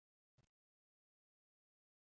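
Near silence, broken by one brief faint pop about half a second in.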